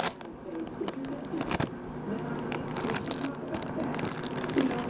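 Plastic ice cream bar wrapper crinkling and rustling in the hands, with scattered crackles as it is worked open.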